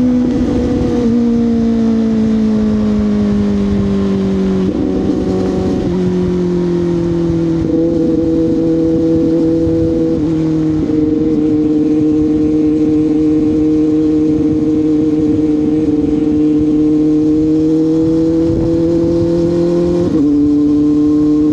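CFMoto 500SR Voom's parallel-twin engine running through an SC Project carbon slip-on exhaust while riding, a steady note that sags slowly in pitch and steps abruptly up or down several times.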